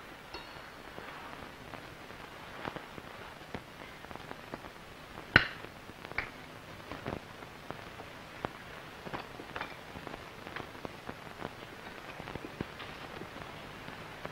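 Cutlery clinking and scraping on china plates and bowls, as scattered light clicks and short clinks over a faint hiss. The loudest clink comes about five seconds in, with another just after six seconds.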